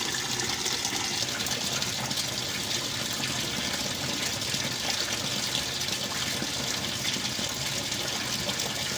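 Water pouring steadily into a GE washing machine's drum during its fill stage, an even rushing hiss.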